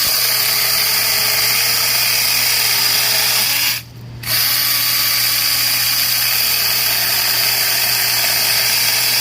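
Cordless lithium-battery electric pruning chainsaw's motor running steadily at full speed, with a high whine over a low hum. It cuts out for about half a second around four seconds in, then starts again.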